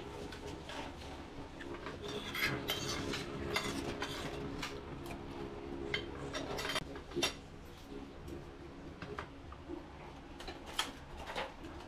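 Serving spoons and forks clinking and scraping against aluminium foil trays and ceramic plates as food is dished out, in irregular clinks, over a faint steady hum.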